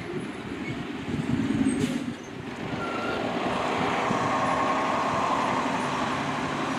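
Fire engine driving past, its engine rumbling steadily, loudest for a moment about a second in as it pulls away.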